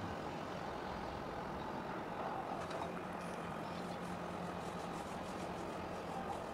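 Steady low engine drone, with a faint low hum that firms up about halfway through.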